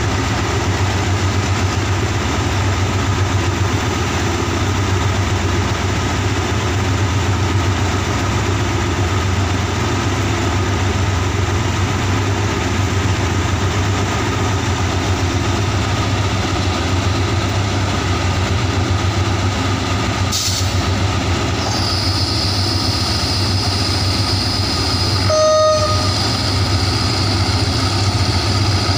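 Diesel engine of a GE-built diesel-electric locomotive running in a steady low drone as the locomotive creeps along. About two-thirds of the way through, a steady high whine joins in, and near the end a brief sharp tone sounds once.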